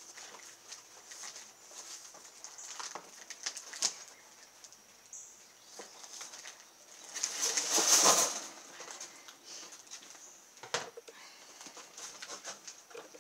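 Large cardboard carton being handled: scattered rustles and knocks of the cardboard, with a louder scraping rustle a little past halfway as the box is tipped up onto its end.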